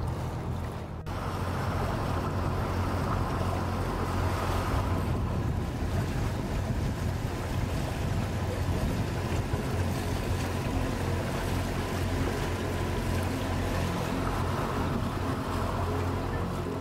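Boat under way on open water: water rushing past the hull and wind buffeting the microphone, with a steady low rumble underneath. A second of music cuts off at the start.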